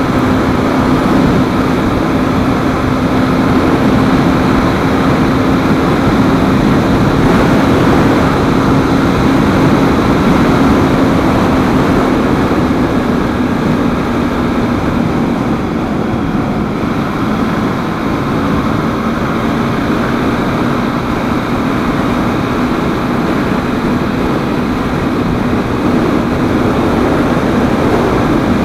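KTM 390 Duke's single-cylinder engine running at a steady highway cruise, mixed with loud wind rush on the helmet-mounted microphone.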